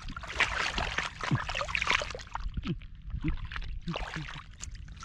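Shallow water sloshing and splashing with small irregular clicks and splatters, as hands work through it while catching fish.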